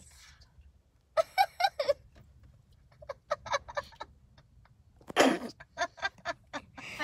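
A girl giggling behind her hand, in several short bursts of quick, repeated laughs.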